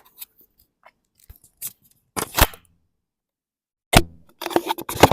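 Handling noise close to a clip-on wireless microphone: scattered clicks and short rustling scrapes, a sharp click just before four seconds and a quick cluster of rustles near the end, with dead silence between them.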